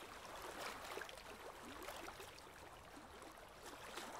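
Faint, steady babbling and trickling of running water, like a small stream.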